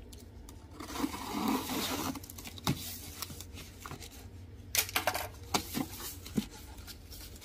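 Unpacking noises: a rustle of packaging about a second in, then several sharp clicks and knocks, most of them bunched together past the middle.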